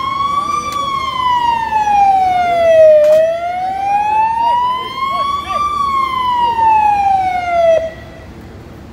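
Siren of a Piranha armored military ambulance sounding a slow wail: it glides up and down in pitch twice, then cuts off suddenly near the end. It marks a casualty evacuation under way.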